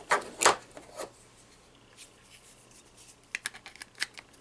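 Hands handling a cordless phone handset and its batteries: a few soft scrapes and rustles in the first second, then a quick run of small, sharp plastic clicks near the end.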